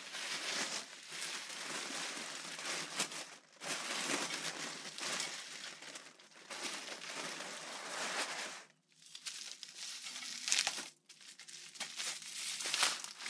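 Tissue paper crinkling and rustling as it is pulled out of a box and handled, in several bouts with brief pauses.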